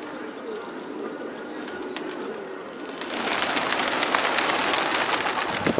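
Domestic pigeons cooing. About three seconds in, a flock takes off together with a loud, dense clatter of flapping wings.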